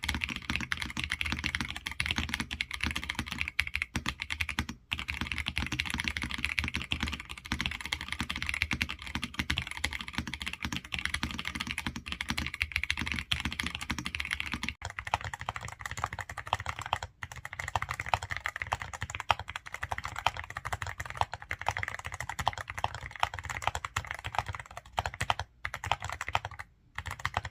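Fast, continuous typing on budget mechanical keyboards, a Royal Kludge RK65 and a Yunzii AL66, one after the other. The sound of the keystrokes changes abruptly about fifteen seconds in, when the second keyboard takes over.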